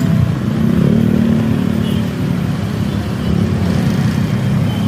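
A road vehicle's engine running steadily, a loud low hum.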